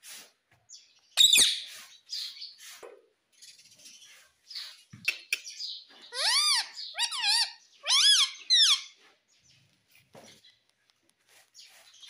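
Indian ringneck parrot calling: a loud sharp screech about a second in, then a quick run of short whistled calls that rise and fall in pitch.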